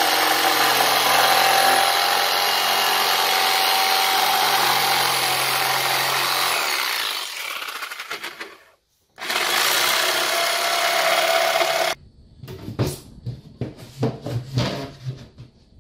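SKIL electric jigsaw cutting through plywood, running steadily for about seven seconds and winding down, then cutting again for a few seconds before stopping abruptly. In the last few seconds there is a run of wooden knocks and thumps as a plywood panel is set into a cabinet floor.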